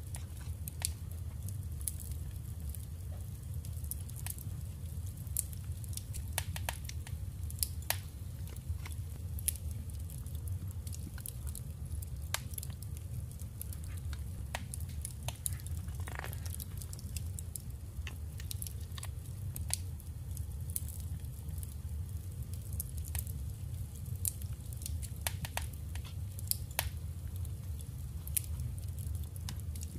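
Light crackles, rustles and small taps from paper ephemera being handled and laid onto a journal page, scattered irregularly, over a steady low hum.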